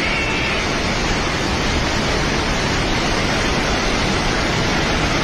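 Floodwater rushing down a swollen river with a loud, steady roar.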